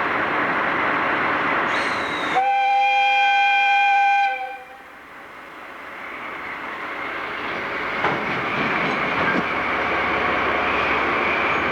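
A train whistle sounds once, held steady for about two seconds, over a steady rushing train noise. After it the noise drops away sharply and then slowly builds back up.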